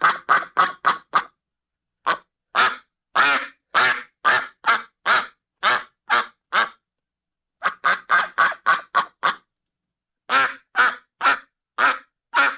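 Duck quacking: short, loud quacks about two a second, in four runs separated by pauses of dead silence.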